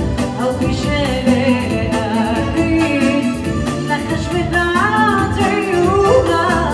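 A woman singing live into a microphone with a band behind her: electronic keyboards and a drum kit keeping a steady beat. Her voice bends and glides between held notes.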